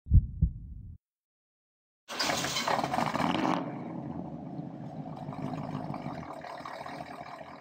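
Two low thumps, then a car engine bursting into life about two seconds in and settling into a steady rumble.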